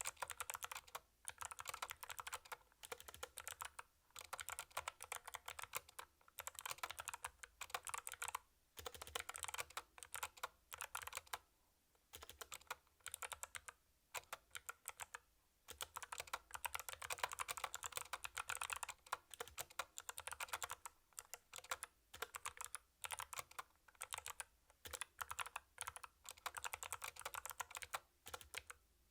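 Typing on a mechanical keyboard fitted with Kailh Box White clicky switches: quick runs of sharp key clicks, broken by short pauses.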